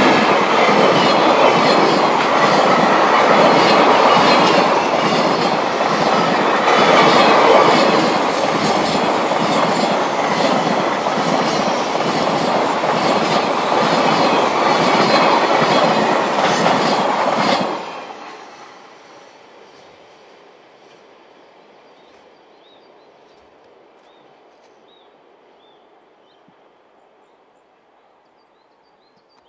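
Freight train of loaded container flat wagons rolling past, the wheels clattering in a rapid rhythm over the rail joints under a thin, high wheel squeal. About two-thirds of the way through the noise cuts off sharply as the last wagon goes by, leaving a fading rumble and a few faint chirps.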